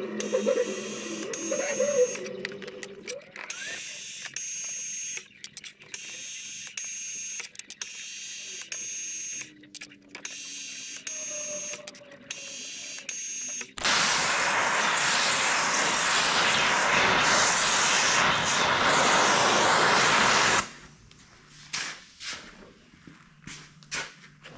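Drill press power-tapping threads in a cast alloy boss: the spindle motor runs for a second or so, stops and reverses at the set depth, over and over for about fourteen seconds. Then a loud, even noise for about seven seconds, followed by faint clicks and knocks.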